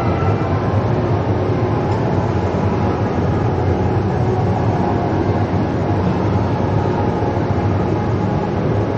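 Steady rumble and low hum inside a car's cabin as it drives slowly along, road and engine noise with no distinct events.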